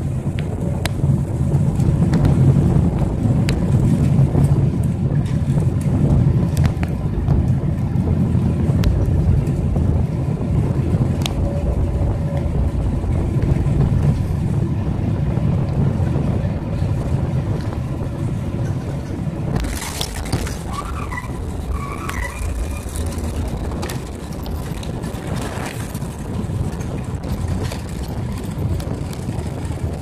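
Heard from inside the cabin, the steady engine and airflow noise of a Boeing 777-300ER on final approach. About two-thirds of the way through, the touchdown brings a sudden change and a short, high, wavering screech lasting a few seconds, followed by quieter rollout noise. The cause of the screech is unknown.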